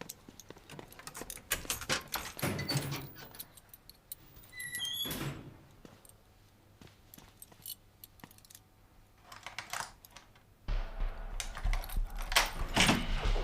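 A bunch of keys jingling and clicking, with a dull thunk about five seconds in. A low steady hum comes in near the end.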